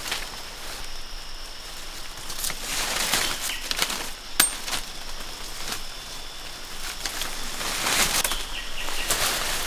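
Leaves and stems rustling and swishing in jungle undergrowth as they are pushed aside and handled, in several short bursts, with one sharp click about four seconds in. A faint steady high insect hum runs underneath.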